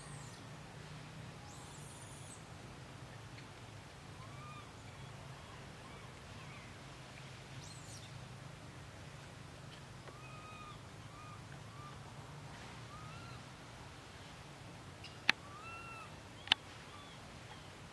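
Forest ambience: faint short, arched bird calls repeat now and then over a steady low background hum. Near the end come two sharp clicks about a second apart, the loudest sounds.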